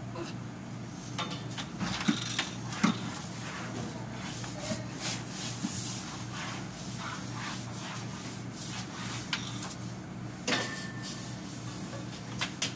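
Rubbing and scraping of cleaning work on a tiled kitchen floor under a counter, with a couple of sharp knocks about two and three seconds in, over a steady low hum.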